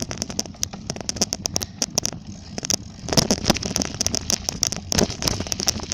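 Bicycle being ridden, rattling with many quick clicks and knocks over a low rumble, getting louder about halfway through.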